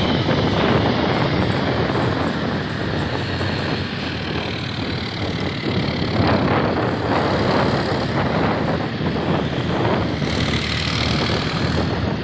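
Heavy military vehicles driving past: the engine and tyres of a large eight-wheeled rocket-launcher truck, then smaller armoured cars, as a steady rumble with no single sharp event.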